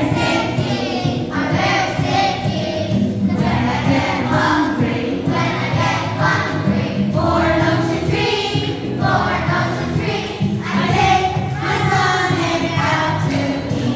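A group of children singing a song together as a choir, continuously.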